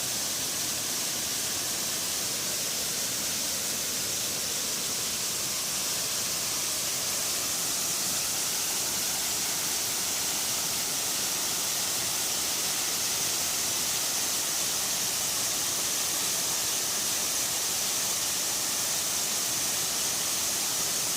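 A small waterfall and a mountain stream rushing steadily, an even hiss of falling water.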